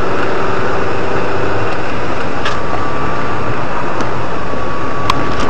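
Loud, steady road and engine noise of a car driving on a snow-covered road, as picked up by a dashcam inside the car. A faint steady tone joins about halfway through.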